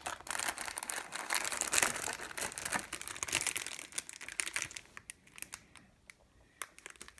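Thin clear plastic bags crinkling as the bagged parts and body shell of a plastic model car kit are handled. Dense crackling for the first four seconds or so, then sparser, separate crinkles.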